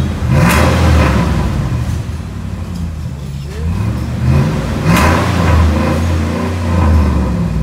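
Ram pickup's engine revving through a newly fitted exhaust and muffler, climbing and dropping back several times, with the sharpest blips about half a second and five seconds in.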